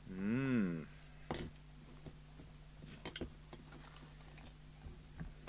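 A short hummed 'hmm' at the start, then scattered light clicks and taps as an opened handheld CB radio is handled and turned round on a workbench, over a steady low hum.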